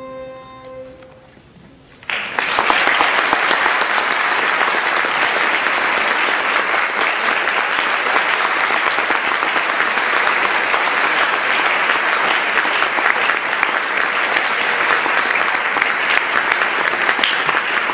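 The last note of an alto recorder with piano rings out and fades away. About two seconds in, audience applause starts abruptly and continues steadily.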